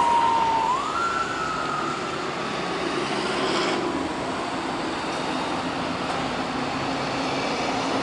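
Police motorcycle siren: a wailing tone that rises twice in the first second, then slowly falls and fades away about halfway through, over steady road traffic. It is the pursuing officer's signal for the speeding scooter rider to pull over.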